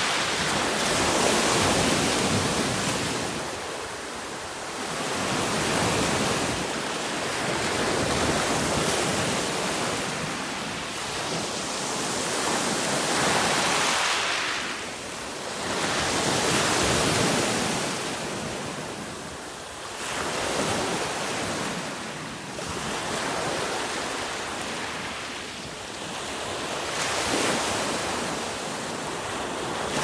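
Mediterranean surf breaking on a pebble beach: a steady wash of waves that swells and falls back every few seconds.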